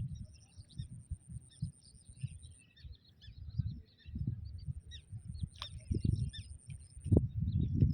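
Small birds chirping and twittering, with many short high calls. Uneven low rumbling lies under them, and a thin high whine comes and goes.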